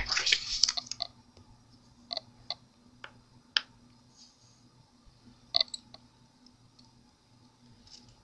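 A sheet of paper rustling as it is laid and slid on a light pad, then a few scattered light clicks of handling.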